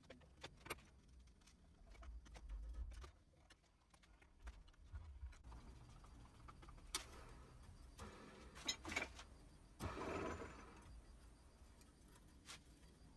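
Faint clicks and clinks of small metal parts being handled as an aluminium cam is fitted and screwed onto a bow limb, with a brief scraping sound about ten seconds in.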